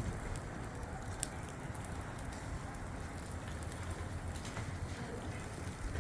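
Fish grilling over hot charcoal: a steady sizzling hiss with scattered small crackles and pops.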